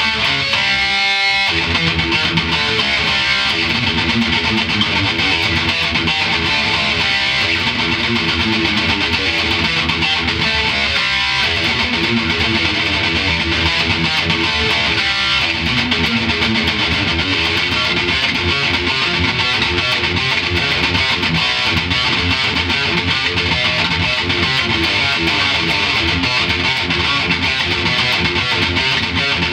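Schecter Hellraiser Solo II electric guitar played through heavy distortion in a continuous metal riff.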